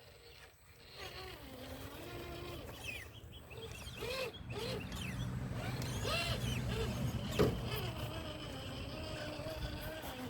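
Electric motor and drivetrain of an RC rock crawler whining, the pitch rising and falling in short arcs as the throttle is worked over rocks. A single knock comes near the middle of the back half.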